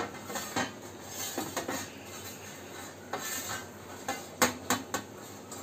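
A palm rubbing ghee over a stainless steel plate, a soft continuous swishing with a few light clinks of the metal plate.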